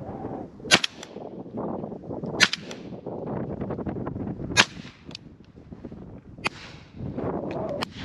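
Shotgun fired repeatedly at flying birds: three loud shots about two seconds apart, then a fainter fourth, with wind buffeting the microphone in between.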